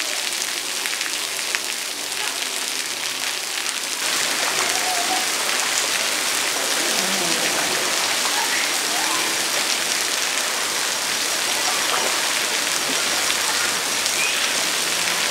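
Steady hiss and patter of falling water on a wet surface, stepping up in level about four seconds in.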